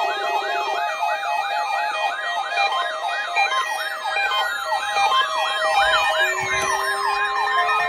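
Electronic weather-radio alert signal: several siren-like warbling tones layered together, each rising and falling about three or four times a second, with other tones gliding down in pitch over them.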